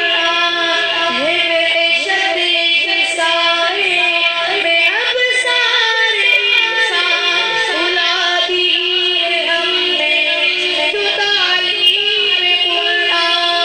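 A high, youthful voice singing an Urdu devotional poem, drawing out long held notes with ornamented pitch turns.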